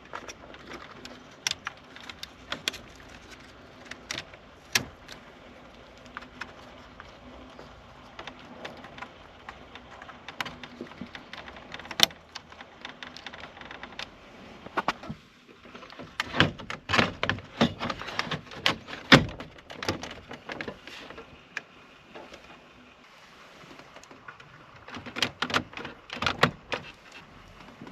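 Irregular clicks, knocks and rattles of hard objects being handled, coming in dense clusters about halfway through and again near the end, over a faint steady hum in the first half.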